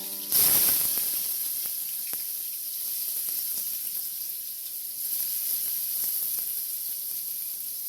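Food dropped into hot oil in a pan: a sudden loud burst of sizzling about a third of a second in. It settles into a steady, high-pitched frying sizzle with faint spatters.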